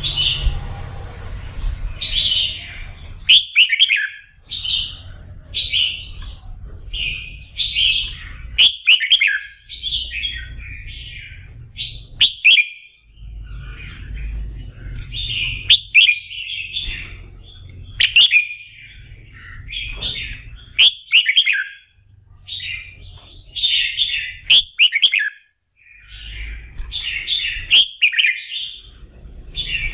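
Red-whiskered bulbul singing short, loud whistled phrases, one every second or two. Sharp clicks fall between the phrases, and a low rumble cuts in and out underneath.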